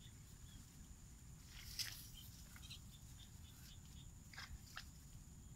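Faint rustles and light clicks of hands working a fish trap in among wet grass, once about two seconds in and twice past four seconds, over faint repeated chirps and a steady high-pitched hum.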